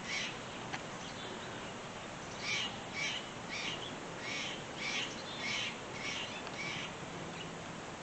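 Harsh bird calls from a corvid, given in a series of about nine short calls, roughly two a second, starting about two and a half seconds in.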